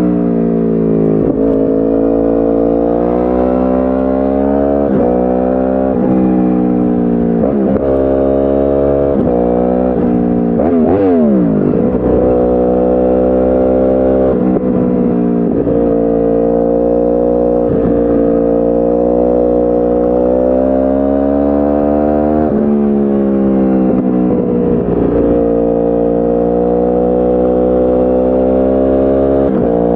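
2010 Yamaha R1's crossplane inline-four through a decat Akrapovic exhaust, accelerating through the gears: the revs climb and drop sharply at each upshift every second or two. About a third of the way in the revs fall away in a long slide, then hold fairly steady before more upshifts near the end.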